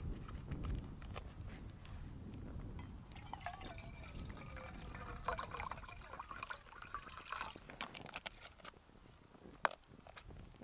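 Water heating in a metal mug on a Bushbox wood-burning pocket stove. It hisses and simmers, with wavering singing tones for a few seconds midway, over the light crackle of the twig fire. There is one sharp pop from the fire near the end.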